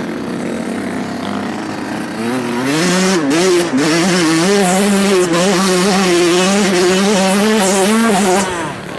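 Dirt bike engine under throttle on a trail. It runs quietly at first, then gets louder a little over two seconds in and holds, its pitch rising and falling as the throttle is worked, before easing off near the end.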